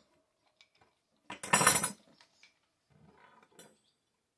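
A steel chainsaw bucking spike and its hardware clinking and rattling as they are handled, with a loud clatter lasting under a second about a second and a half in and a softer rattle about a second later.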